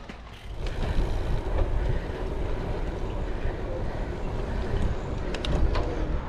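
Wind buffeting the microphone of a camera on a moving bicycle: a steady low rumble that starts about half a second in, with a few short clicks near the end.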